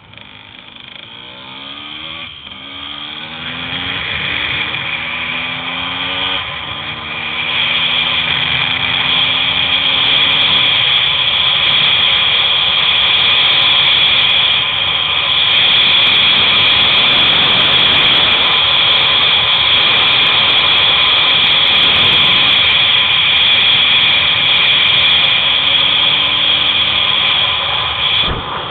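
Wind rushing past the microphone and wheels rolling on rough asphalt during a fast downhill run. The noise grows louder over the first several seconds as speed builds, then holds as a steady, hissing rush.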